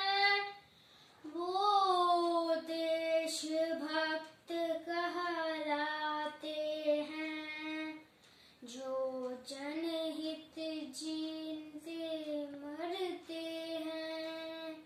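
A young boy singing solo and unaccompanied, holding long steady notes. He breaks off twice for a short breath between phrases, about a second in and about eight seconds in.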